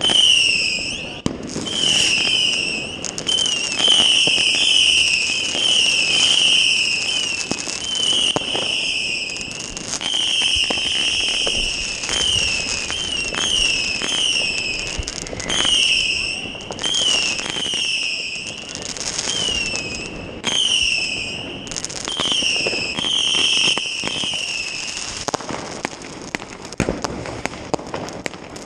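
Fireworks going off, with a long run of shrill whistles, each half a second to about a second and a half long and falling slightly in pitch, over sharp bangs and crackles. The whistles stop near the end, leaving scattered bangs.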